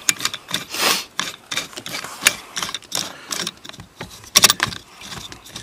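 Irregular metal clicks and scraping from a screw-type brake caliper piston compressor being cranked by hand, pressing the caliper piston back into its bore. There is a louder rasp about a second in and a sharp clatter of clicks about four and a half seconds in.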